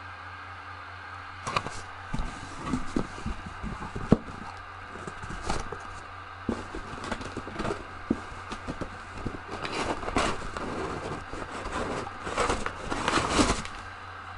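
Cardboard and paper packaging being handled and torn open: irregular rustling, crinkling and scraping with sharp clicks, starting about a second and a half in and stopping shortly before the end. A steady electrical hum sits underneath.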